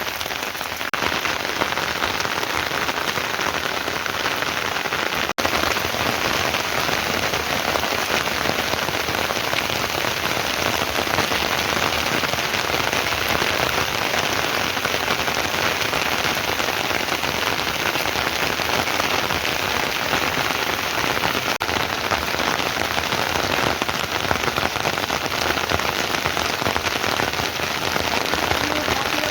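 Heavy rain falling steadily in a dense, even hiss, broken by a momentary gap about five seconds in.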